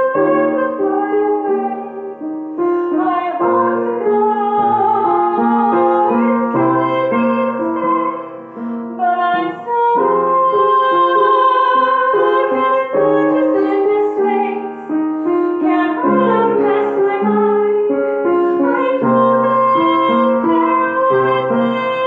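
A woman singing to her own upright piano accompaniment, a slow song with long held notes over repeated chords.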